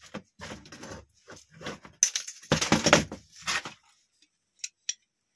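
Small scrap metal parts and screws from a dismantled printer clattering as they are handled and moved about, loudest about two and a half seconds in, then a few light clicks near the end.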